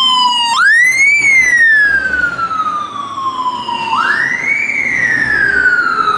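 Fire engine siren wailing in two cycles. Each rises quickly and then falls slowly; the first starts about half a second in and the second about four seconds in.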